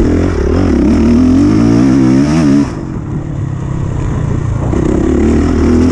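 Honda CRF450R's single-cylinder four-stroke engine on the throttle, then shut off sharply about two and a half seconds in, and pulling again near the end.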